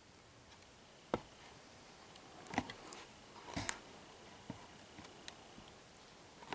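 Quiet background hiss with a handful of sharp clicks and snaps, the loudest about a second in and a close pair near the middle, under a faint steady high tone.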